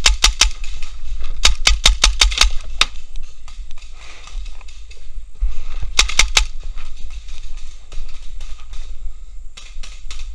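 Paintball markers firing rapid strings of sharp pops: a short burst at the start, a longer string of about ten shots around two seconds in, and another quick burst about six seconds in.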